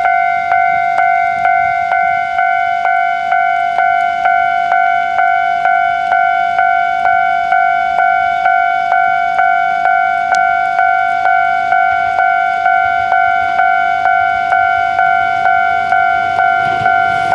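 Japanese railway level-crossing warning bell ringing steadily, a little over two strokes a second: the crossing is down and a train is approaching.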